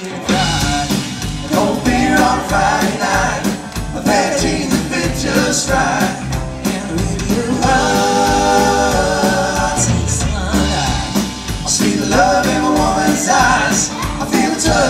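A live country-rock band playing: drums, bass, electric guitar and fiddle, the full band coming in sharply at the start.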